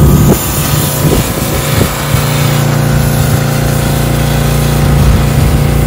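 Gas-engine pressure washer running steadily, its small engine humming under the hiss of the high-pressure water spray blasting grime off a steel truck chassis.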